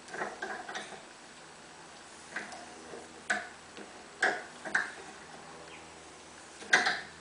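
An M6 steel tap being turned by hand to cut a thread into the brass head of a .223 case stuck in a full length sizing die. The tap gives irregular sharp clicks and short squeaks as it bites into the brass and is backed off, with the loudest one near the end.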